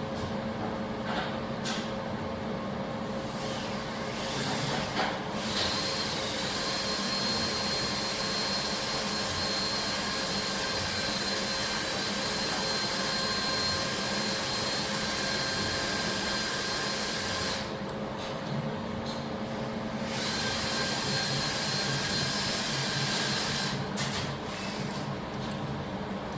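Automatic fiber laser welding machine running: a steady low hum, joined about five seconds in by a high whine and hiss that drops out for a couple of seconds past the middle, returns, and stops shortly before the end.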